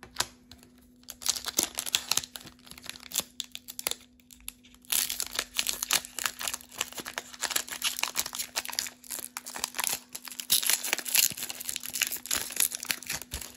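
Foil Pokémon booster pack wrapper being torn open and crinkled in the hands. Scattered crackles at first, then continuous crinkling from about five seconds in.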